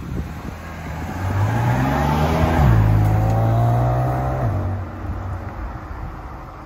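BMW M4 Convertible's 3.0-litre twin-turbo inline-six accelerating away, its pitch rising and then dropping suddenly at a gear change about two and a half seconds in. It holds a steady note for a couple of seconds, then fades as the car pulls into the distance.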